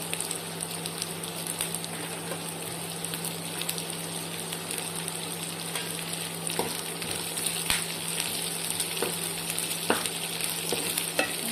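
Chopped onion, carrot and green peas sizzling in hot oil in a frying pan, a steady hiss, with a few sharp scrapes of a spatula stirring them in the second half.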